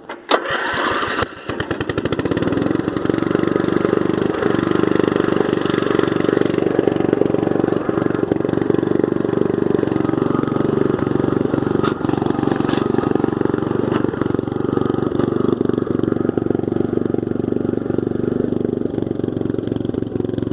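Craftsman LT10 riding mower engine cranked on its starter for about a second and a half, then catching and running steadily, on its first start after reassembly. Two short clicks sound over it about twelve seconds in.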